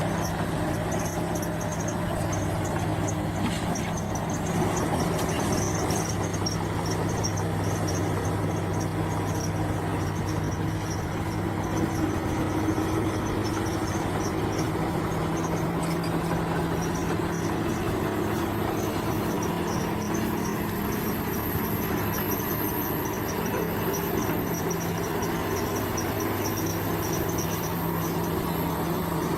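Bulldozer's diesel engine running steadily at an even pitch, with a pulsing high chirping over it.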